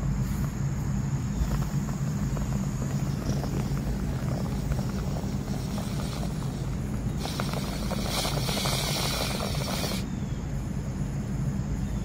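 Steady low mechanical hum over an outdoor rumble, with a burst of hiss lasting about three seconds a little past the middle.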